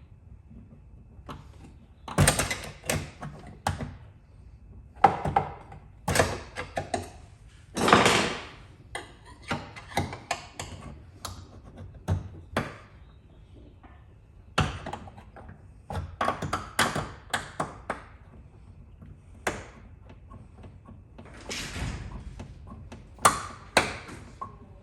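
Irregular knocks, taps and clunks, coming in clusters with short gaps between them.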